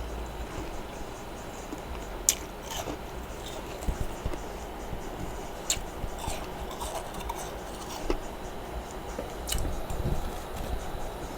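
A person biting and chewing freezer frost, with a few sharp crunches a couple of seconds apart and softer chewing between them.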